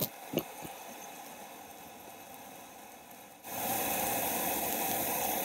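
A 100,000 BTU high-pressure propane wok burner running with a steady rushing flame noise, under a wok of water at a steaming boil. There are a few knocks near the start. About three and a half seconds in, the burner noise jumps sharply louder and fuller.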